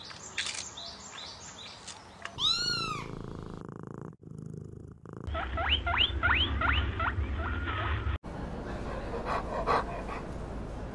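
Short animal-call clips spliced one after another: a run of quick high squeaks, a brief rising-and-falling call, then a faster run of squeaks over a low rumble. Each clip cuts off abruptly.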